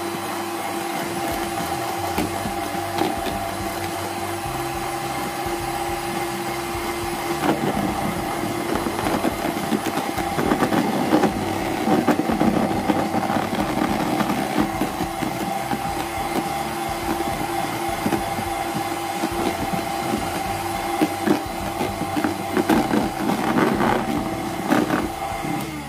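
Electric hand mixer running, its twin beaters whipping egg whites and sugar into meringue in a plastic tub: a steady motor whine with irregular clatter from the beaters from about eight seconds in. The mixer stops near the end.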